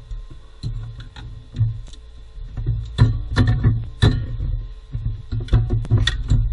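Irregular clicks and knocks of hand tools on metal, over background music.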